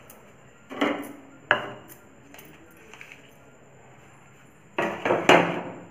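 Crockery knocking and clinking as a plate with a teacup is handled: two sharp knocks about a second in, then a quick run of three near the end, the last the loudest.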